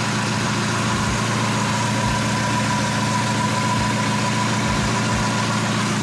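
Mazda MX-5 NA's DOHC 16-valve four-cylinder engine idling steadily on fresh oil, its hydraulic lifters no longer clattering.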